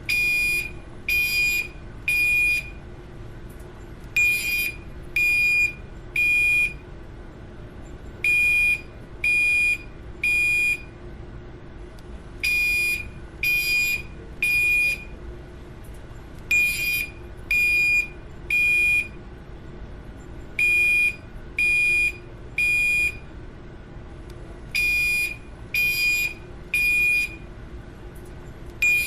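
Building fire alarm sounding in the temporal-three evacuation pattern: three high-pitched beeps about a second apart, then a pause, the group repeating about every four seconds. A faint steady hum runs beneath.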